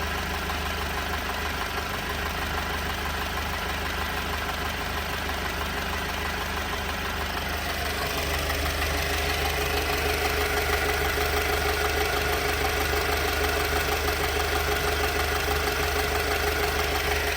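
2018 Alfa Romeo Stelvio engine idling roughly, a rough idle that persists despite a new engine mount, fuel pump, spark plugs and freshly cleaned injectors. The sound grows a little louder about halfway through.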